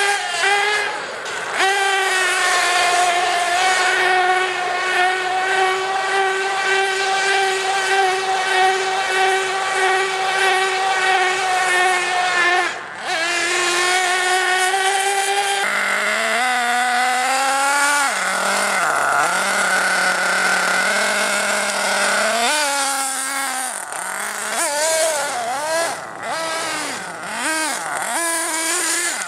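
Nitro Star F4.6 two-stroke nitro engine of an HPI Nitro Trophy 4.6 RC truggy running at high revs. A high, steady whine holds for about twelve seconds and dips briefly. The pitch then drops lower and wavers, and near the end it revs up and down in quick swings.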